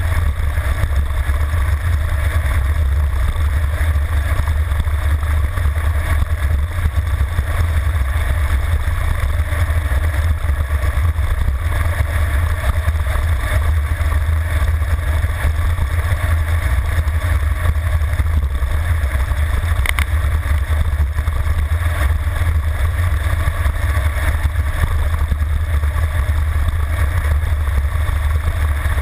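Wind rushing over a handlebar-mounted camera's microphone on a road bike descending at high speed: a steady low rumble that never lets up.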